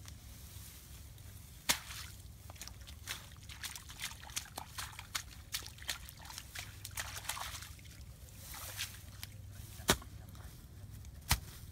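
Feathers being plucked by hand from a dead bird's carcass: a running string of small crackles and clicks as the feathers pull free, with a few sharper snaps about two seconds in and near the end.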